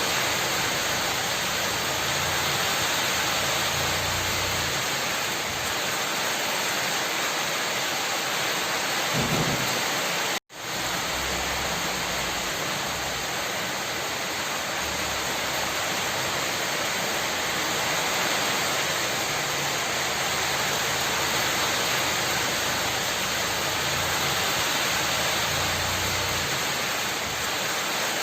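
Steady rain hissing evenly, with low rumbles of thunder rising and fading several times. The sound cuts out for an instant about ten and a half seconds in, then resumes.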